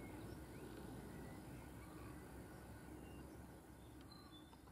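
Near silence: faint outdoor garden ambience with a low hum and a few faint, distant high chirps like small birds, fading away toward the end.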